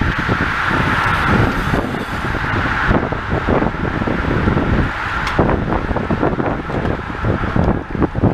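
A large peloton of road-racing bicycles sweeping past close by, the rushing whir of many tyres and wheels loudest in the first three seconds, with wind gusting on the microphone.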